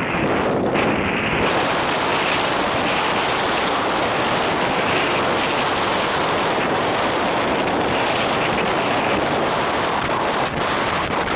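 Strong wind buffeting the camera microphone: a loud, steady rushing noise with no let-up.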